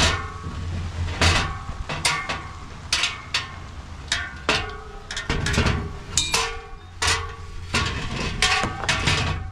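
Metal loading ramps and trailer parts being handled: a string of irregular metallic clanks and knocks, some leaving a short ring.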